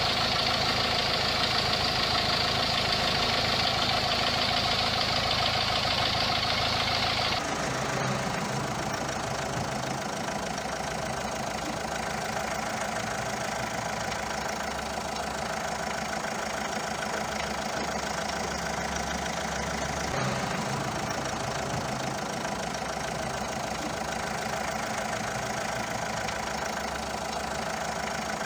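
Diesel car engine idling, first with a loud clatter from its common-rail injectors with worn control valves. After a sudden cut about seven and a half seconds in, the same engine idles more quietly and evenly with the injector valves replaced.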